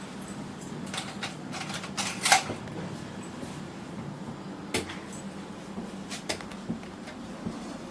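A few light clicks and knocks of kitchen handling, scattered a second or so apart, over a steady low hum.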